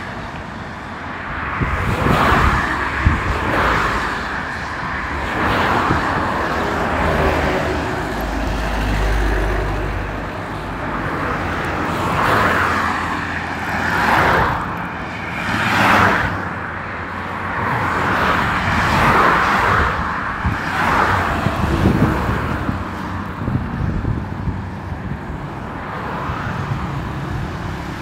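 Traffic on a multi-lane expressway, with cars passing one after another. Their tyre and engine noise swells and fades every few seconds.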